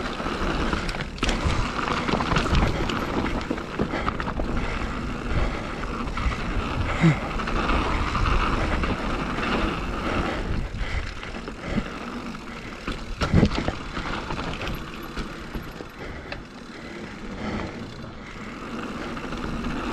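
Mountain bike ridden down a rough dirt trail: steady tyre and ride noise with repeated knocks and rattles over bumps, the hardest jolt about two-thirds of the way through.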